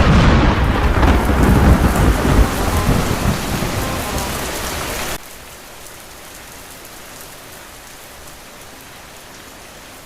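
A clap of thunder breaks over rain and rumbles away, cut off abruptly about five seconds in, leaving steady rain.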